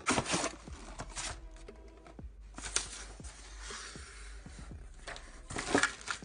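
Slime being squeezed and pressed by hand, giving crackly, crunchy bursts of noise at the start, about a second in, near three seconds and again near the end.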